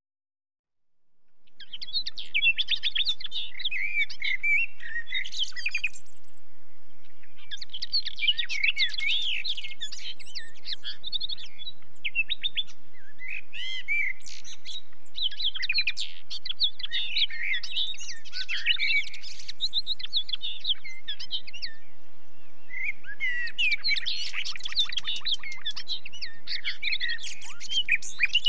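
Birds chirping in repeated quick phrases with short pauses between them, fading in over the first couple of seconds.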